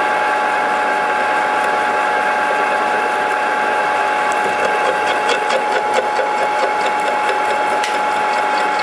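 Homemade milling machine cutting a long slot in a metal plate with an end mill: a steady motor and spindle whine over the grinding of the cut. From about halfway on, scattered sharp ticks join in.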